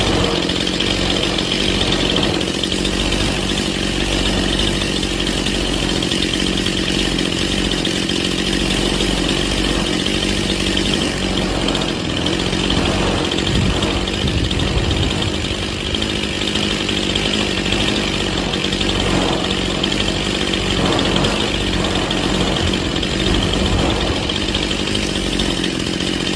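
Stihl MS 181 C chainsaw's two-stroke engine idling steadily at about 2,800 RPM while its carburettor's low-speed mixture screw is being tuned.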